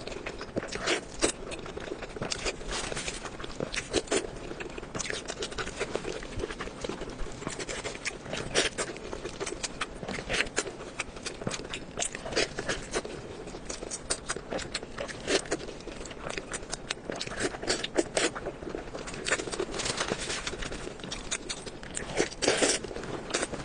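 Close-miked eating: irregular crunching, biting and chewing clicks, many a second, with no talking.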